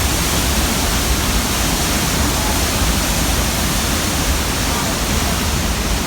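Roar of a large waterfall heard close up: a loud, steady rushing noise with a deep rumble underneath.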